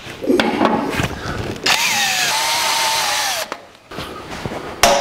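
Cordless drill spinning up and cutting through a spot weld in the steel frame bracket, the bit squealing in the metal for about two seconds before easing off. Just before the end, a hammer strikes the steel with a sharp ringing blow.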